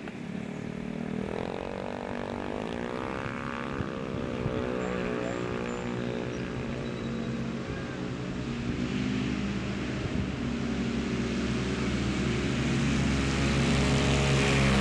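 Two 170cc four-stroke racing scooters launching off the drag-strip line: the engines rev up steeply in the first few seconds, then hold a high, droning note as they accelerate down the strip, getting louder near the end as they pass close.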